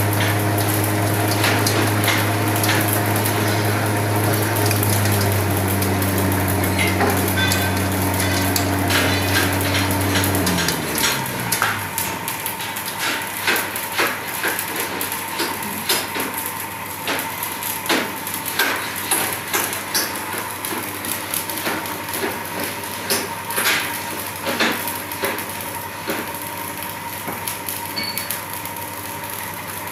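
A small single-shaft waste shredder's motor running with a steady hum, then winding down in pitch and stopping about a third of the way in. After it stops, a scattered run of sharp knocks and clicks.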